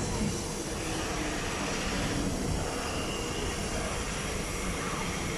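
SMRT Kawasaki-Sifang C151B metro train pulling into the platform and slowing, a steady rumble of wheels on rail with a faint high whine from the motors and brakes a couple of seconds in.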